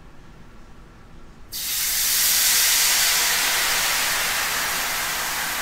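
Whiskey poured into a hot cast iron skillet. About a second and a half in it hits the pan with a sudden loud hiss and sizzle, which holds and slowly eases as the spirit boils off in steam, deglazing the pan.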